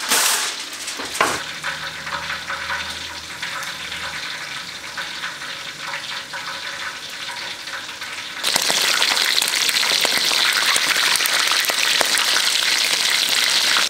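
Raccoon pieces frying in hot oil in a pan: a steady sizzle that jumps to a much louder, brighter sizzle about eight seconds in, with a sharp knock about a second in.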